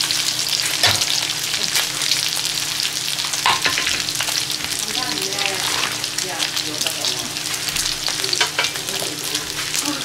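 Pork belly slices frying on a hot 38 cm coated camping griddle, their fat sizzling and crackling steadily.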